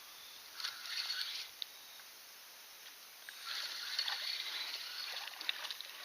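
A fishing reel being cranked in two spells, a short one near the start and a longer one from about halfway, with a whirring, ticking sound, as a hooked catfish is reeled in on cut bait.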